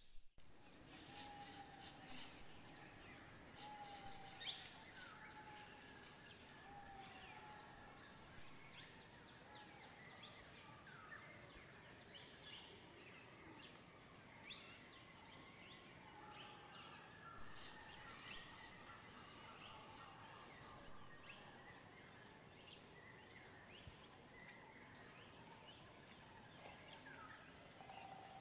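Faint chorus of wild birds: many overlapping chirps and short whistles, with a lower short whistled note repeated every second or two in the first several seconds.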